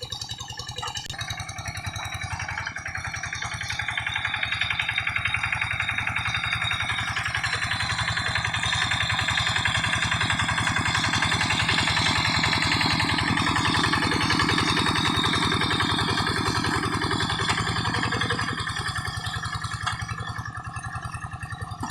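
Quick G1000 hand tractor's single-cylinder diesel engine running steadily under load while harrowing mud. It gets louder a few seconds in and eases off near the end.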